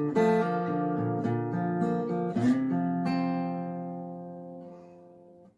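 Solo acoustic guitar playing a few picked and strummed chords, then a chord left to ring and slowly die away over about three seconds.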